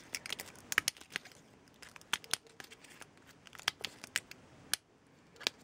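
Small scissors snipping through the plastic backing of a self-adhesive rhinestone sheet, cutting off single stones: a string of sharp, irregular snips and clicks, with a short pause near the end.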